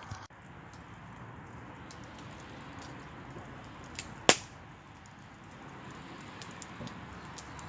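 A single sharp crack about four seconds in, over a steady hiss.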